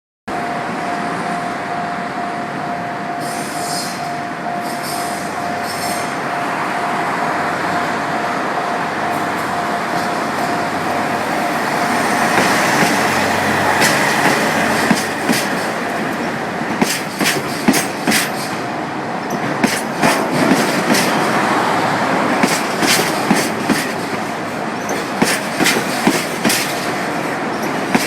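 Level-crossing alarm ringing steadily as a freight train of empty tank wagons approaches, then the train passing with a brief wheel squeal. From about halfway the wagon wheels click over the rail joints in repeated groups.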